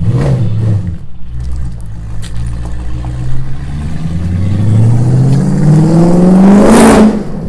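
A car engine accelerating hard: its pitch climbs steadily for about three seconds and is loudest just before it cuts off sharply near the end.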